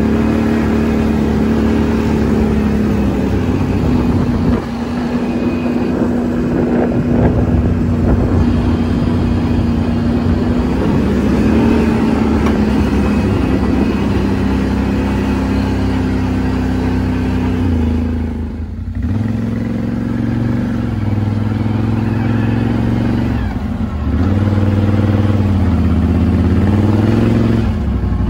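ATV engine running on a trail, its pitch holding steady for long stretches and shifting with the throttle. The engine eases off briefly about two-thirds of the way through, then picks up at a lower, rougher pitch.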